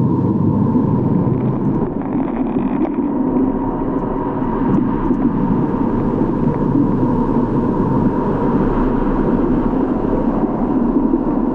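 A steady, loud, low rumbling drone with a faint held tone above it.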